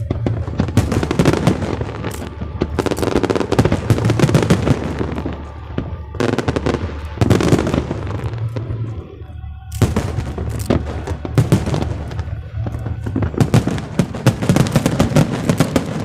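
Aerial fireworks going off in a dense barrage: rapid bangs and crackling, with short lulls about six and nine and a half seconds in.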